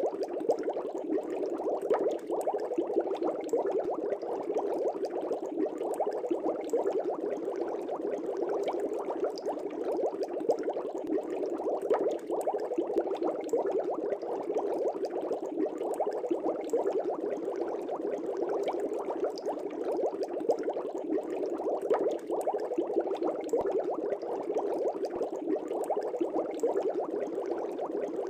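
Air bubbles rising steadily through the water of a fish tank, a dense, even bubbling with many small pops and crackles.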